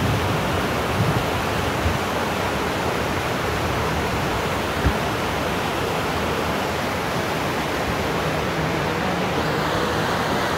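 Mountain stream rushing over boulders: a steady, unbroken noise of white water.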